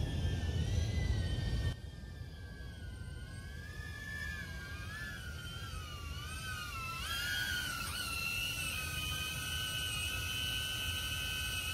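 DJI Avata FPV drone's ducted propellers whining, the pitch wavering up and down with the throttle, then holding steady as the drone hovers low. A low rumble cuts off suddenly about two seconds in.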